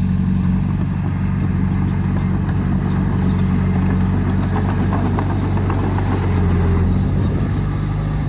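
Diesel engine of an earthmoving machine running steadily, with faint metallic clinks. The engine note shifts slightly about seven seconds in.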